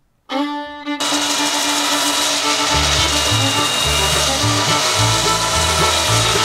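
Background music with a rhythmic bass line, over a handheld power sander running against a wooden tabletop. It starts suddenly just after the beginning.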